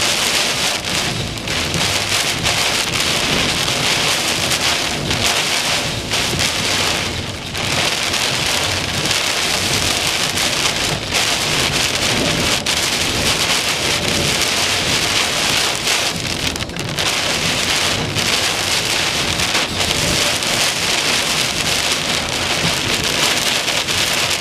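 Heavy wind-driven rain beating on a truck in a severe straight-line windstorm, heard from inside the cab: a dense, steady hiss with a few brief dips.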